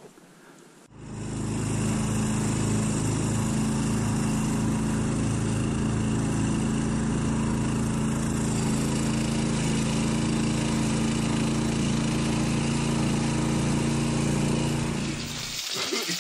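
A karakat's small engine running steadily under way, towing a loaded trailer over grass. It comes in about a second in and holds a steady pitch until it cuts away near the end.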